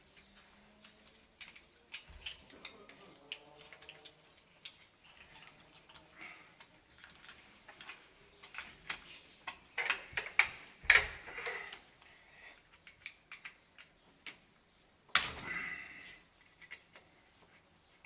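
Scattered clicks and small plastic knocks as electrical wires are pushed into flush-mounted wall boxes and a socket mechanism is handled with a screwdriver. There is a cluster of louder clicks near the middle and a short scrape about three quarters of the way through.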